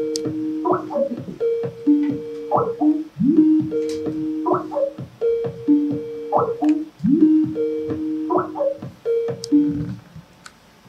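Skype incoming-call ringtone: a short electronic keyboard melody repeating about every two seconds. It stops about ten seconds in as the call is answered.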